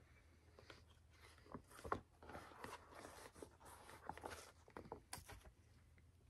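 Near silence with faint, scattered rustles and light clicks from handling cross-stitch projects as one piece is set aside and the next is picked up.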